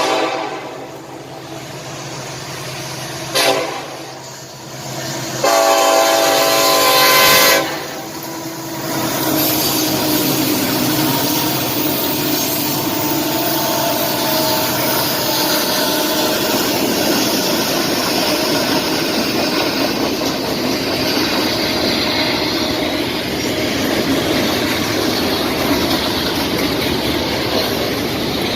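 Locomotive's Nathan K5-series five-chime air horn: a short toot, a brief blip a few seconds later, then one chord blast of about two seconds. After it the train passes with a steady rumble and clatter of wheels on rail.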